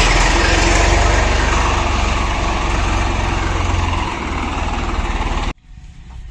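Engine idling steadily, with a loud hiss over its low, even pulsing; no clear whistle tone stands out. It cuts off abruptly about five and a half seconds in.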